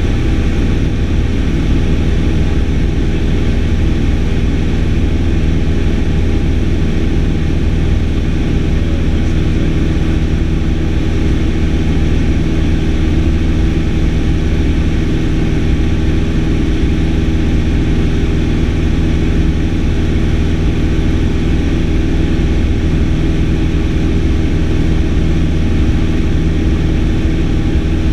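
Single-engine light aircraft's piston engine and propeller droning steadily in flight, heard from inside the cockpit.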